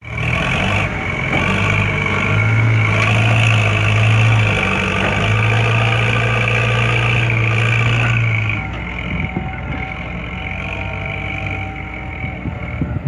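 Engine sound from a homemade vehicle sound simulator: a steady engine drone with a high tone over it, which drops to a lower, quieter running sound about eight and a half seconds in.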